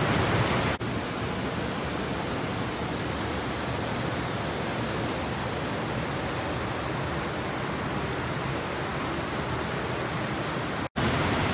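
Steady rush of Cumberland Falls, an even hiss of falling water. It drops out for an instant about a second in and again near the end.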